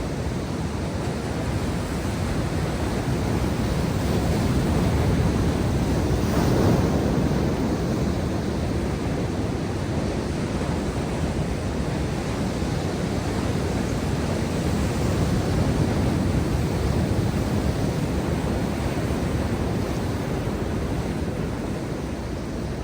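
Ocean surf: waves breaking and washing in as a steady rush that swells louder about six seconds in and again around sixteen seconds.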